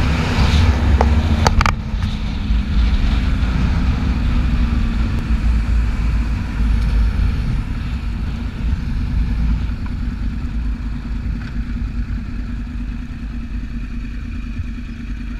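Sport motorcycle engine and wind rush heard from a camera on the moving bike, loudest in the first couple of seconds with a few sharp clicks, then gradually easing off as the bike slows down.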